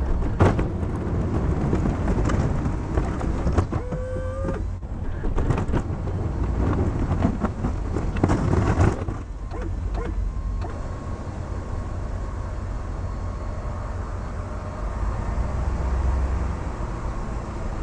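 Pickup truck with a snow plow running while plowing, a steady low engine rumble with irregular scraping noise and a few knocks.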